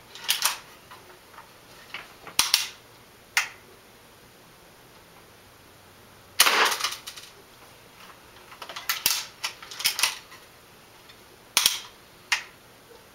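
Daisy Model 1894 lever-action BB gun being worked and fired: a series of sharp clicks and clacks from its lever and action, with one longer, louder shot about six and a half seconds in.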